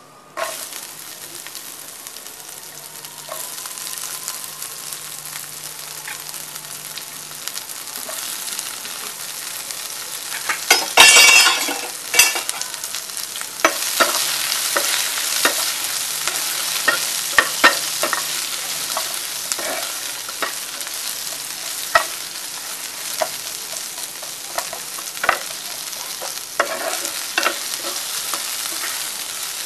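Oil sizzling with whole spices in a non-stick frying pan. About eleven seconds in there is a loud burst as sliced onions go in. From about fourteen seconds the frying is louder and a spatula stirs the onions, with frequent clicks and scrapes against the pan.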